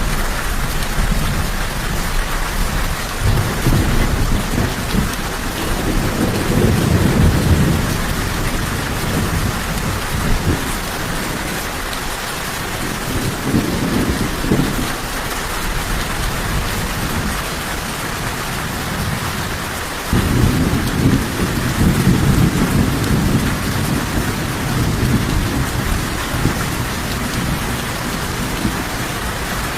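Steady rain falling, with several low rolls of thunder rumbling under it: one builds over a few seconds early on, a shorter one comes near the middle, and another starts suddenly about two-thirds through and fades away.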